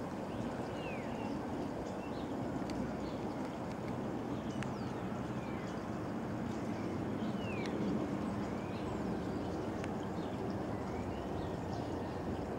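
Outdoor ambience: a steady low rumble with small birds chirping now and then, and a few faint clicks.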